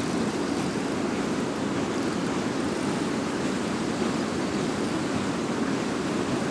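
Fast-flowing river water rushing in a steady, unbroken noise.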